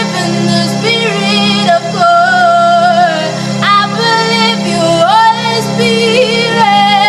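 Gospel-style song: a solo voice sings long held notes that slide between pitches, over a steady low sustained accompaniment.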